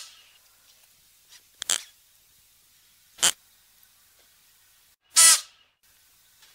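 Klipspringer antelope giving short calls, three of them about one and a half to two seconds apart, the one about five seconds in the loudest.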